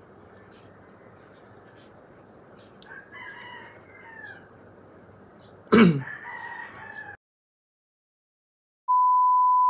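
A rooster crowing in the background, its bending calls coming twice, with one sudden loud sound about six seconds in. The sound then cuts out completely, and near the end a steady beep tone starts.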